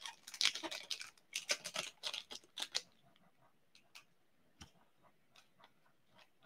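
Wrapper of an Upper Deck Ultimate hockey card pack crinkling and tearing as it is pulled open by hand: a quick run of crackles for about three seconds, then a few faint scattered clicks.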